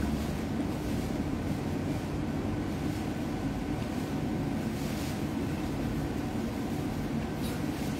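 Steady low mechanical hum and rumble, unbroken throughout, with no speech over it.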